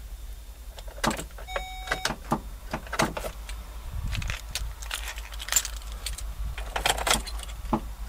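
A bunch of keys jingling and clicking as keys are swapped in and out of a Chevy pickup's ignition lock, each tried in turn to find one whose transponder the truck accepts. A short electronic beep sounds about a second and a half in.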